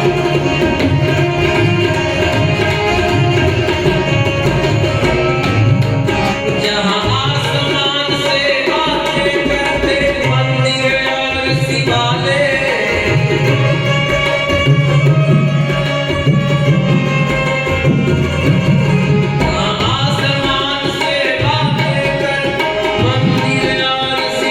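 Indian music: tabla playing a steady rhythm under a wavering melody line.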